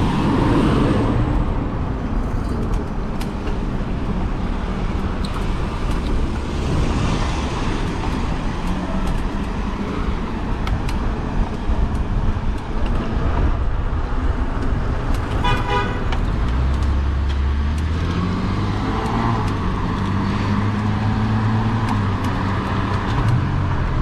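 Road traffic heard from a moving e-bike: a steady rush of wind and road noise with cars passing. A brief horn toot comes a little past the middle, and a vehicle engine runs close by with its pitch rising and falling in the last third.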